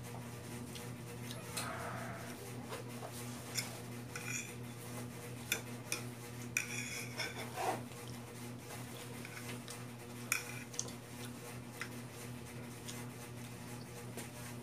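Metal fork clinking and scraping against a plate in scattered short taps while eating, over a steady low hum.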